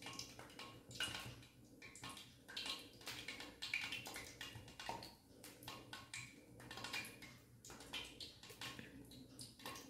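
Faint, irregular ticks and rustling of a hand-held chakli press being squeezed, forcing rice-flour dough out in spirals onto newspaper.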